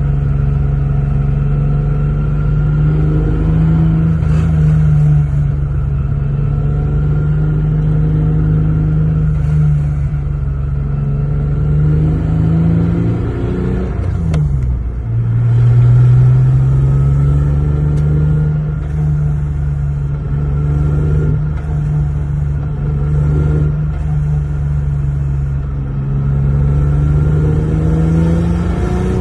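Lexus GS 300 straight-six engine pulling the car along through its swapped-in ZF manual gearbox, its pitch climbing slowly. About halfway the engine note drops sharply with a gear change, then climbs steadily again.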